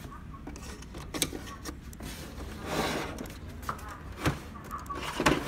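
Plastic parts of an HP Laser 107-series printer being handled while its toner cartridge is worked at the open front: several sharp plastic clicks and knocks, and a short sliding scrape about two and a half seconds in.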